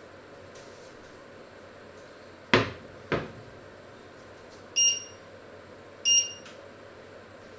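A stainless steel pot set down on a glass-ceramic cooktop: two sharp metal clanks about half a second apart. Then the hob's touch controls beep twice, short electronic beeps about a second and a half apart.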